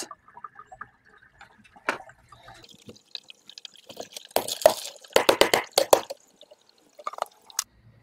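Wet copper sulfate crystals and their liquid tipped out of a plastic bucket onto a cloth filter. A few faint drips and taps come first, then a burst of splashing and clattering in the middle, and a couple of knocks near the end.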